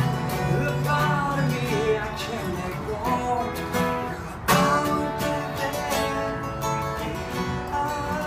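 A man singing while strumming a steel-string acoustic guitar, with a strong accented strum about halfway through.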